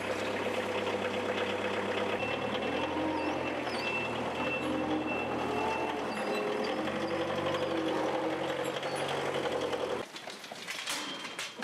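Forklift running and manoeuvring, its engine note shifting in pitch, with a high warning beep sounding for a few seconds partway through. Near the end the machine sound cuts off and a few knocks of boxes being handled follow.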